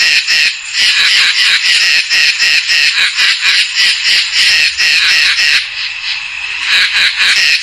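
Koala calling: a long, loud run of rasping pulses, about five a second, that softens briefly near the end before picking up again.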